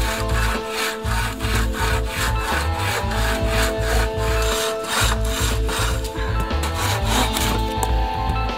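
Bow saw cutting through a wooden roof pole in quick, even back-and-forth strokes, over background music with held tones and a low beat.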